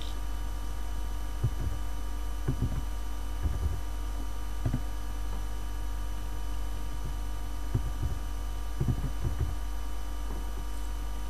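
Steady electrical hum from the recording chain, with about eight soft, low thumps scattered through it as keys are typed on a computer keyboard.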